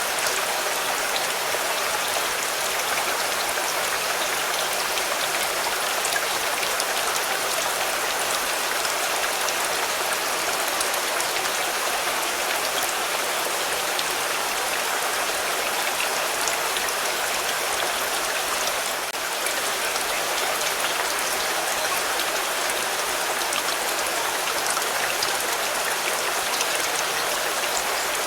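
Steady rain falling on a car: a dense, even hiss flecked with the ticks of single drops.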